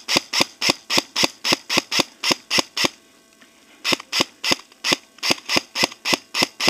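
Airsoft gun firing single shots in quick succession, about three or four sharp cracks a second, with a pause of about a second near the middle before the firing resumes.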